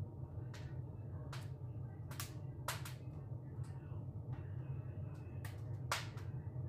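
A low steady hum with several sharp clicks at irregular intervals, the loudest near the end.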